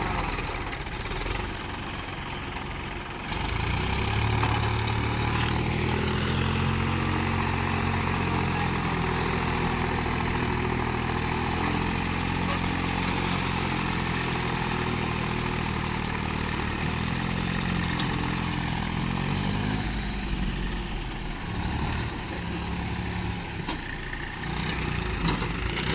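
Swaraj 843 XM tractor's three-cylinder diesel engine running at low speed, then opening up about three seconds in and running hard under load as it strains to drag a loaded trailer bogged in soft sand. It eases off somewhat near the end.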